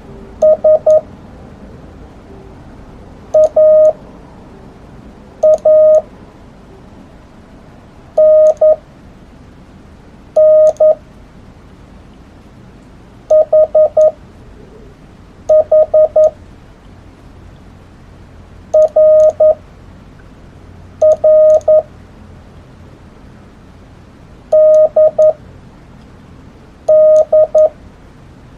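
Korean (Hangul) Morse code, a single steady tone near 650 Hz keyed in short groups of dits and dahs. Each group is one character, with pauses of about two seconds between characters. Faint clicks come with the keying.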